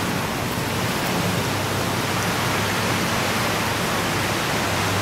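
Steady, even rushing noise with no rise and fall.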